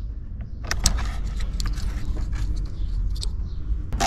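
A hand screwdriver driving Torx screws through the fabric-covered plastic lower dash trim of a Smart Fortwo 451, heard as a run of irregular short scrapes and clicks.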